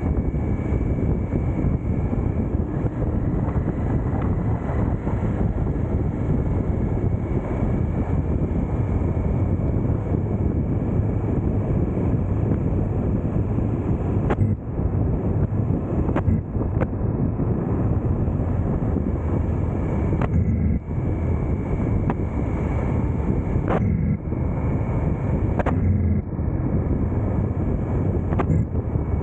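Triumph Tiger 900 GT motorcycle riding along at steady speed: a constant low rumble of engine and road noise with wind rushing over the action camera's microphone. A few short knocks come in the second half.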